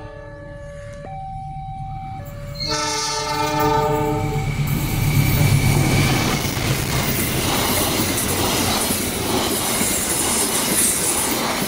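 A diesel-electric locomotive's multi-tone horn sounds in several blasts over the first four seconds or so. Then the locomotive and its passenger coaches pass close by, with engine rumble and wheels running over the rails, loud to the end.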